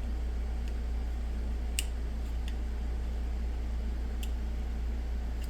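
A few sharp, light clicks and ticks of a screwdriver prying at a glued-in cell inside a plastic battery pack, the strongest about two seconds in, over a steady low hum.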